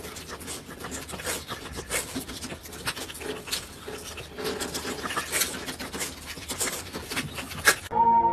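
Dogs in a wire cage panting and mouthing at a plastic-wrapped treat held to the bars, with irregular crinkling and scratching. Music starts abruptly near the end.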